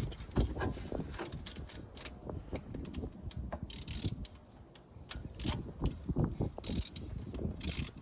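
Long ratchet wrench clicking in irregular runs as a spark plug is worked loose and backed out, with a few brief hissing rasps between runs.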